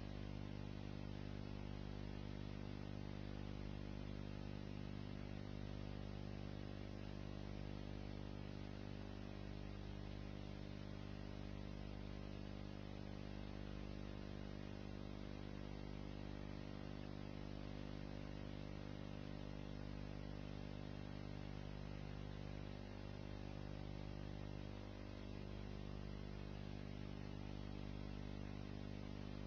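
Steady electrical hum with many overtones under a low hiss, unchanging throughout: mains hum on the soundtrack of an old recording.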